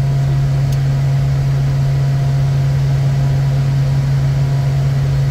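Bombardier Challenger 350 business jet in flight in its climb, its twin Honeywell HTF7350 turbofans giving a constant drone: a strong steady low hum with a few faint steady higher tones above it.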